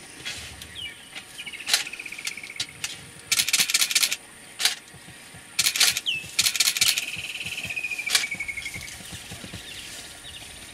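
Sharp clicks in quick runs, the longest about three seconds in and again around six seconds, with single clicks between. Behind them a pulsed trill slides downward in pitch, briefly early on and for about two seconds near the end.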